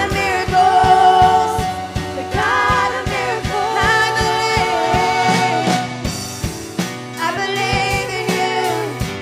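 Live spontaneous worship music: a woman sings long, held lines with vibrato over a band keeping a steady beat.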